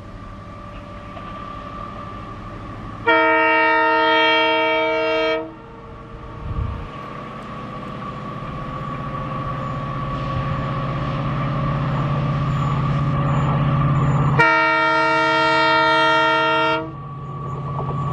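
WDG-4 (EMD GT46MAC) diesel-electric freight locomotive approaching under power, its engine rumble growing steadily louder. It sounds its air horn twice, each blast a chord of several tones lasting about two and a half seconds, the first about three seconds in and the second near the end.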